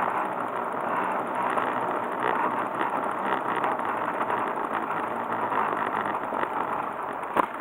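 A motor engine running steadily, with a single sharp knock near the end.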